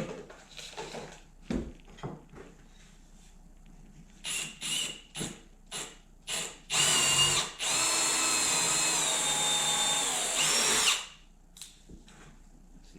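Power drill with a 6 mm bit boring an existing hole deeper into a wooden bench slat: a short burst about six and a half seconds in, then a steady run of about three seconds, its whine sagging slightly in pitch under load. Before it, a series of separate clicks and knocks from handling the drill and workpiece.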